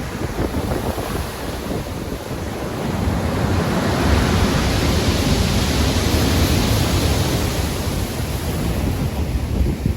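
Stormy sea surf with wind. A wave builds about three seconds in, washes through loudly, and eases off near the end.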